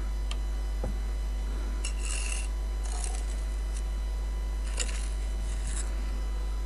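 A small steel trowel scraping mortar against a brick's edge and joint in a few short strokes, over a steady low hum.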